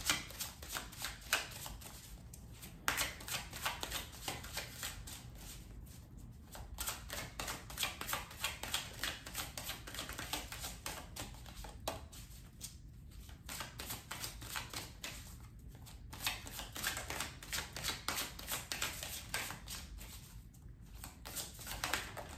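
An Intuitive Heart Tarot deck being shuffled by hand, overhand: quick runs of soft card clicks, broken by a few short pauses.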